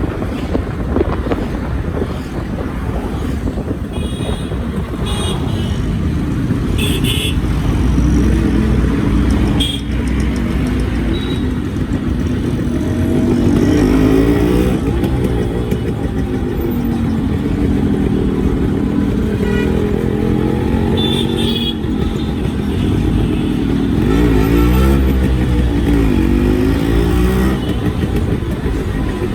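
Yamaha RX-series two-stroke single-cylinder motorcycle engine running, its pitch rising and falling as it is revved or accelerated, once about halfway through and again near the end.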